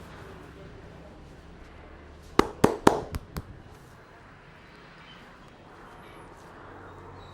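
Head massage by a barber's hands: a quick run of five sharp cracks or slaps about two and a half seconds in, the first three loudest, over low room hum.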